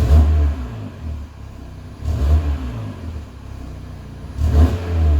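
Audi RS3's turbocharged 2.5-litre five-cylinder engine revved three times through an AWE SwitchPath exhaust, each short rev rising and falling back to idle.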